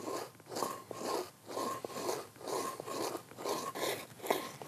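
Grain being ground on a stone saddle quern: a hand-held rubbing stone pushed back and forth over grain on the stone base, a rhythmic gritty scraping of stone on stone at about two strokes a second.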